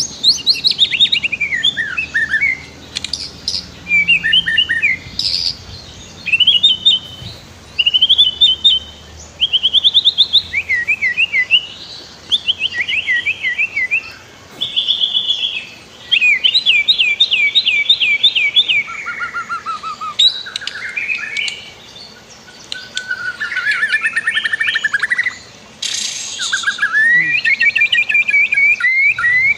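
White-rumped shama (murai batu) singing a varied song: quick phrases of rapid repeated whistles and trills, one after another with short pauses. A steady rush of flowing river water runs underneath.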